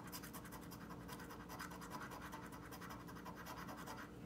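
A coin scraping the coating off a scratch-off lottery ticket in rapid, faint back-and-forth strokes.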